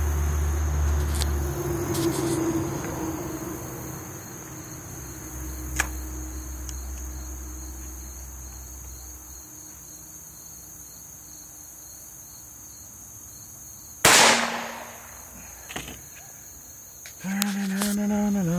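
A single .17 HMR rifle shot from a single-shot break-action rifle about 14 seconds in, a sharp crack with a short decaying tail, over steady cricket chirping. A drawn-out vocal sound follows near the end.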